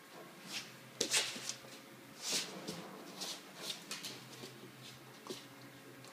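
Drentsche patrijshond puppy pawing and scrabbling at toys on a fleece mat: a run of short, scratchy rustles, the loudest about a second in and again past two seconds.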